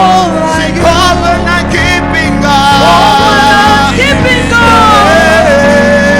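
Live gospel worship band music: sustained keyboard chords and bass with a wavering melody line gliding over them.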